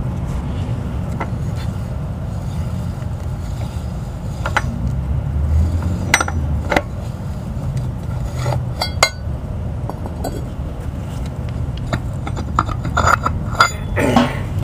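Scattered metallic clinks and scrapes of a chrome knock-off wire wheel being taken apart by hand: the spinner spun off, then the wheel pulled off its hub adapter. The clicks come in a cluster about nine seconds in and again near the end, over a steady low rumble.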